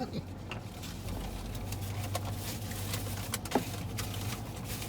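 Steady low hum of a car engine idling, heard from inside the cabin, with scattered light clicks and rustles.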